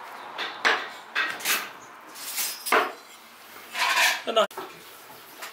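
Cleaver chopping on a round wooden chopping block: about eight sharp, irregularly spaced knocks.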